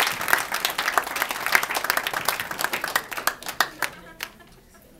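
Audience applauding: dense clapping that thins out and dies away about four seconds in, leaving a few last scattered claps.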